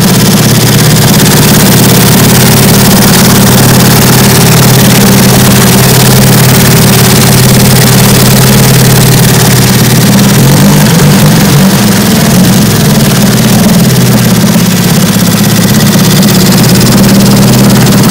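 1950 Johnson TN-26 5 hp twin-cylinder two-stroke outboard running loudly in a test tank, steady at first, then uneven for a few seconds about ten seconds in. It is stammering and sputtering, which the owner thinks is running on one cylinder.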